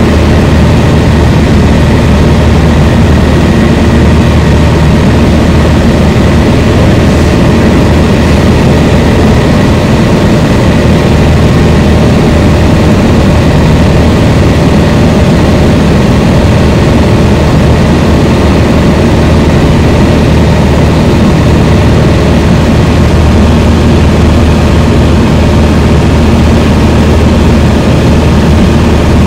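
Single-engine light airplane's piston engine and propeller at cruise, heard from inside the cockpit: a loud, steady drone with a strong low hum.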